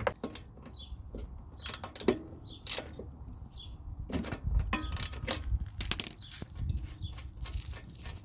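Irregular clicks, knocks and rustling from hands working with a new spark plug and tools.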